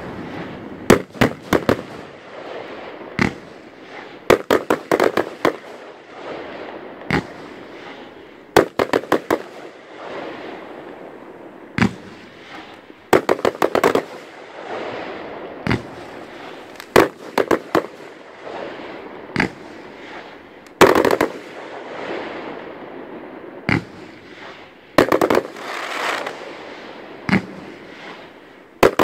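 Aerial fireworks display: shell bursts go off as sharp bangs, some single and some in rapid clusters of four or five, with a continuous crackling between them.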